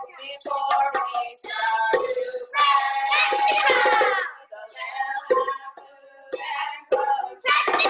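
Several voices singing a song together, with a tambourine jingling through the first half and again near the end, heard through a video call's audio.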